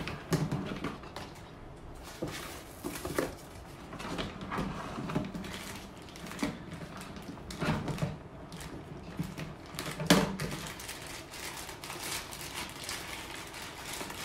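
Plastic bag crinkling and rustling as it is unwrapped from a power cord, with irregular clicks and knocks, the loudest about ten seconds in.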